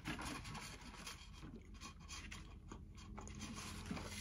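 Faint chewing with small clicks and rustles of food and packaging being handled.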